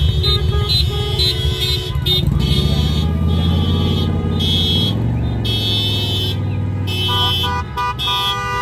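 Car horns honking in repeated short toots over passing vehicle engines, with a deep engine rumble swelling in the middle and dropping away about seven and a half seconds in.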